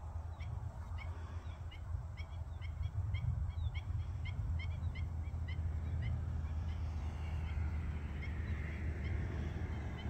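Black-winged stilt giving a run of short, sharp calls, about two or three a second, which stop about six seconds in, over a steady low rumble.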